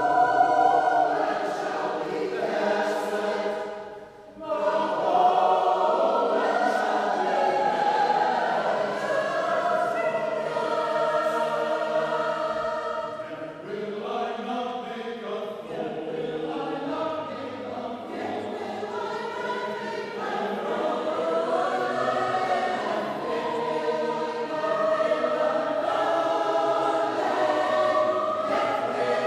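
A mixed choir sings a shape-note piece, many voices together in sustained phrases. There is a brief pause between phrases about four seconds in.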